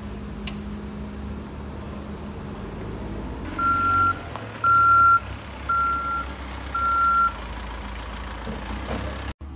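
Heavy road-works machinery's diesel engine running steadily, with a reversing alarm that starts beeping about three and a half seconds in: four high beeps of about half a second each, one a second.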